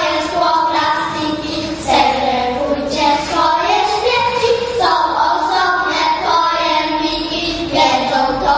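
A small group of young children singing together into microphones, holding long steady notes with short breaks between phrases.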